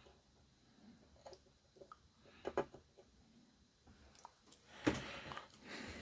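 Faint, scattered clicks and taps of small tools working on an electronics circuit board, the sharpest about two and a half seconds in, followed near the end by about a second of soft hissing.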